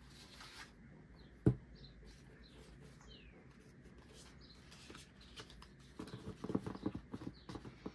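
Paper leaflets and cards being handled and shuffled on a tabletop, with a single sharp knock about a second and a half in and a flurry of rustling and tapping near the end as the papers are squared up.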